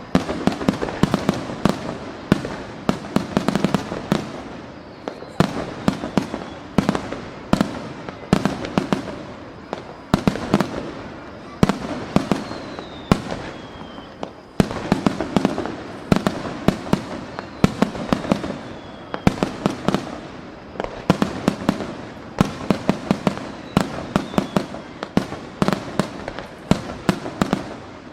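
Aerial fireworks bursting in a rapid barrage: sharp booms and bangs come several a second in surging clusters, with a few faint falling whistles in the middle of it.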